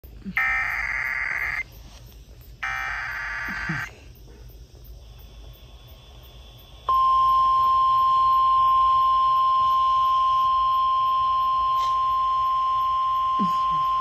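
Emergency Alert System signal played through a small radio's speaker. First come two screeching digital data bursts, each about a second long: the SAME header that encodes the flash flood warning. About three seconds later a single steady high attention tone, the National Weather Service's 1050 Hz warning tone, starts and holds.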